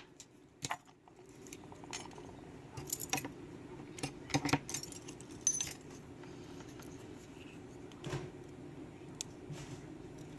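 Small metal clicks and clinks, scattered and irregular, from a pin tumbler lock being taken apart and its small pins, springs and tools handled.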